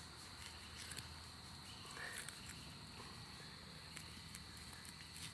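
Quiet outdoor ambience: a faint, steady high-pitched hum with scattered soft clicks and rustles as a knife cuts through a deer's hide, and a brief chirp about two seconds in.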